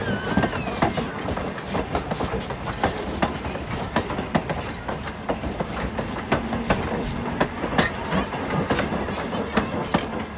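Vintage railroad passenger coaches rolling past, their wheels clicking and knocking over the rail joints over a steady rumble.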